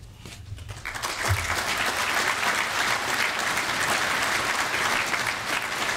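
Conference audience applauding, building up about a second in and then keeping on steadily.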